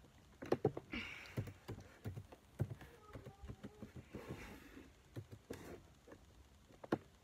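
Irregular clicks of keys on an HP laptop keyboard as a password is typed in, in short runs with brief pauses.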